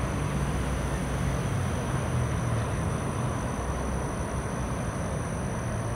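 Steady low rumble of distant road traffic, with a thin, steady high-pitched hum above it.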